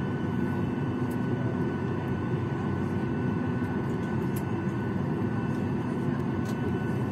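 Steady cabin noise inside a Boeing 737-800 as it is pushed back from the stand: an even low rumble with a thin steady whine above it.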